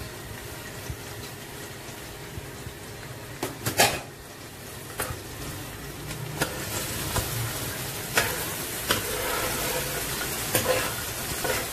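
Sliced onions frying in lightly heated oil in an aluminium karahi, a steady sizzle that grows louder about six seconds in. A steel ladle stirs them and knocks against the pot, with a louder clatter a little under four seconds in.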